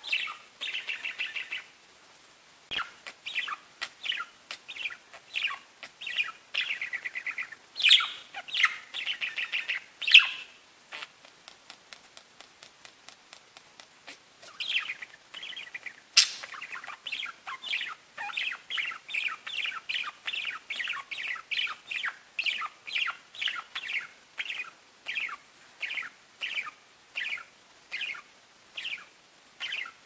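Pet budgerigars (parakeets) chirping and warbling in a busy stream of short calls, then a run of quick repeated chirps at about two a second in the second half.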